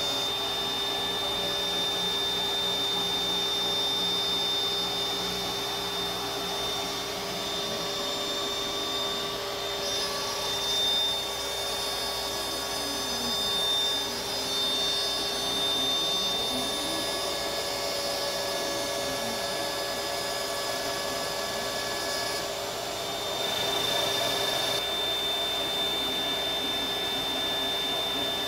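CNC router cutting luan plywood with an end mill: the router spindle's steady high whine mixed with the dust-collection vacuum running through the hose at the cutter. A lower tone glides up and down through the middle stretch as the machine moves along the cut.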